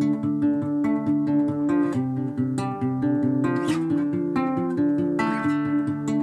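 Classical guitar fingerpicked in a repeating arpeggio pattern, thumb and fingers alternating between strings, the notes ringing over one another.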